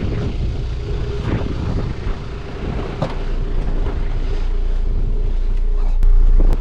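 Strong wind buffeting the microphone, a low rumble that swells about six seconds in. A few sharp knocks and a faint steady hum sit under it.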